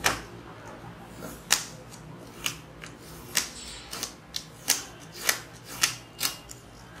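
Sharp crackles and ticks, irregular at about one or two a second and some louder than others, from the thin paper and plastic film pieces of a tempered-glass lens protector kit being peeled and handled over a GoPro's lens. A faint steady low hum lies underneath.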